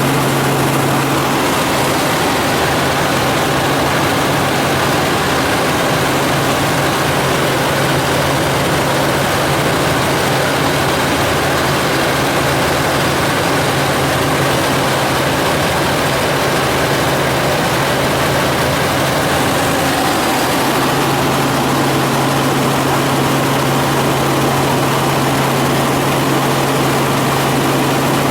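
Helicopter in flight: a steady, loud engine and rotor noise. A low hum under it drops away a second or two in and comes back about two-thirds of the way through.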